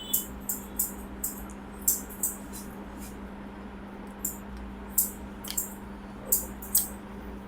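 Hands working over the scalp and hair during an Indian head massage: a run of short, crisp crackles and clicks at irregular intervals, over a steady low hum.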